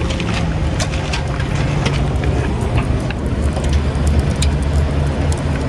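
Tow vehicle's engine idling steadily, with scattered light clicks and taps over it.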